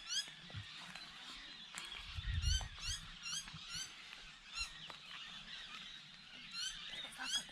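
Bird calls: short, squeaky rising notes repeated in quick clusters several times.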